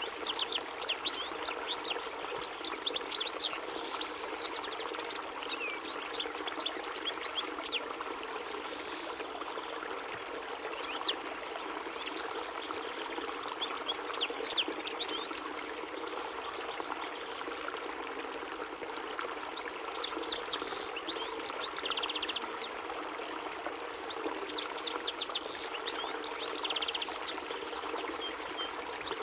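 European goldfinch singing fast, twittering phrases of high chirps, a few seconds each with short pauses between, over a steady background hiss.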